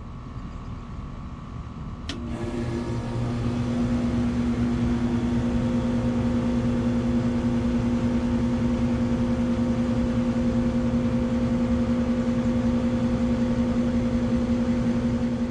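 A 1985 York Champion IV "Tombstone" air conditioner starting up. A sharp click about two seconds in, then its Copeland CR reciprocating compressor and condenser fan come on. The steady hum builds over the next couple of seconds and then holds.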